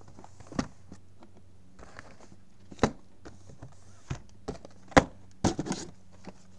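Shrink-wrapped trading card hobby boxes being handled and set down in stacks on a table: a handful of separate knocks and thuds, the loudest about five seconds in, with faint rustling between them.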